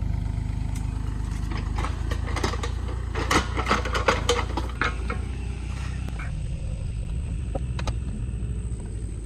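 Mini excavator engine running steadily, with a cluster of sharp clanks and scrapes about two to five seconds in.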